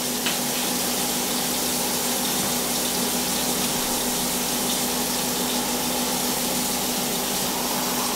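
Steak frying in a covered skillet: a steady sizzle, with a low steady hum underneath.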